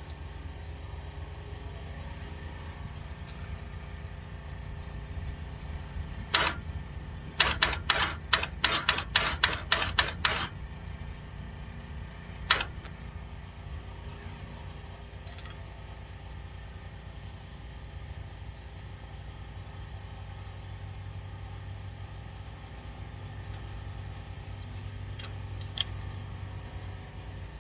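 Sharp metallic clicks of hand tools on a big-block Chevy's valve train: a single click, then a quick run of about ten clicks over three seconds, then a few scattered single clicks. A steady low rumble runs underneath.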